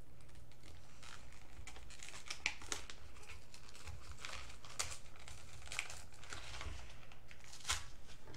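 Plastic toy packaging being crinkled and torn open by hand: a steady run of irregular crackles with a few sharper snaps.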